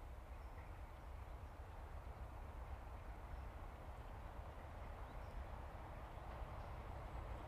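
Distant BR Class 33 diesel locomotive's engine running under power as it approaches, faint and growing slightly louder towards the end, over a low outdoor rumble.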